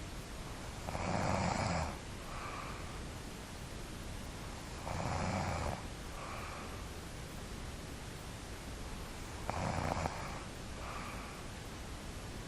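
A sleeping person snoring: three loud snores about four to five seconds apart, each followed by a softer breath, over a steady background hiss.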